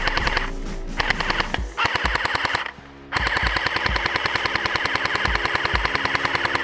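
AK-style airsoft electric rifle firing on full auto, a rapid even clatter of shots. There are a few short bursts, a brief pause about three seconds in, then one long continuous burst, over background music.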